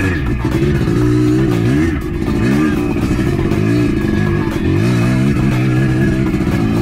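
Dirt bike engine revving up and down, its pitch rising and falling several times as the throttle is worked over rough trail. Background music plays along with it.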